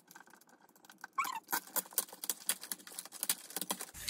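Plastic sleeve on a large photo book crinkling and rustling under the hands: a quick, irregular run of small crackles starting about a second in.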